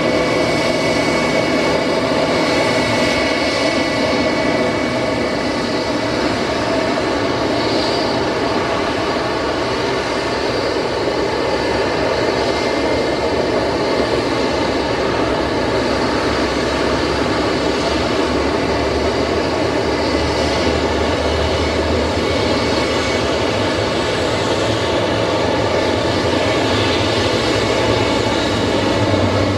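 Airbus A319 jet engines running steadily at idle: a continuous loud roar with a steady high whine on top.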